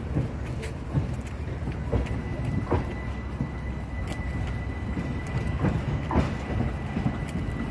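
British Rail Class 313 electric multiple unit standing at the platform with its equipment running: a steady low rumble, and a thin high whine that comes in about two seconds in. Short knocks sound roughly once a second.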